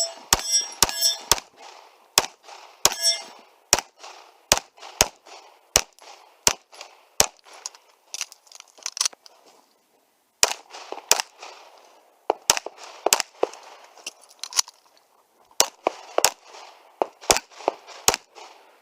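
A long string of handgun shots fired in quick groups, many followed by the metallic clang and ring of hits on steel targets, with a brief pause about halfway through.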